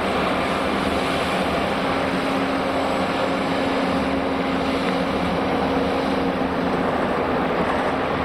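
Heavy mining machinery running steadily: the diesel engines of a Liebherr R980 SME front shovel and a Belaz 7547 mining dump truck make a constant engine noise with a steady low hum as the truck drives across the pit floor.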